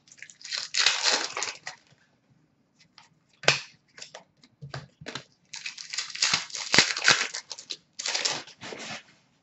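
Foil wrappers of hockey card packs being torn open and crinkled in three spells, with a few sharp clicks of cards being handled and set down between them.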